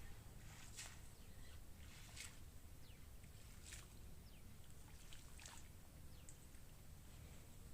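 Near silence: faint outdoor background with a low rumble and a few short, soft high-pitched sounds at roughly one-and-a-half-second intervals.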